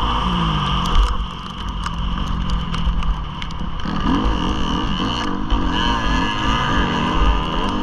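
Motocross bike engine ridden hard round a dirt track, heard from the bike itself: revving up and down with the throttle, briefly backing off about a second in, then rising and falling quickly over and over from about halfway through.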